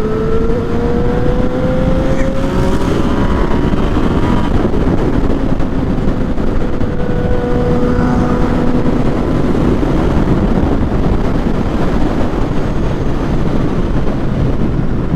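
Motorcycle riding at speed: the Yamaha FZ-09's inline-three engine pulls up through the revs over the first few seconds, then holds a steady note, under constant wind rush on the rider's microphone.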